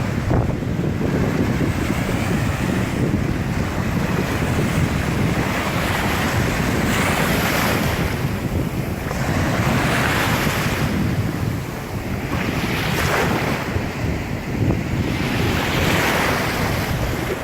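Ocean surf breaking and washing ashore, with wind buffeting the microphone as a steady low rumble. The hiss of the wash swells up about every three seconds in the second half.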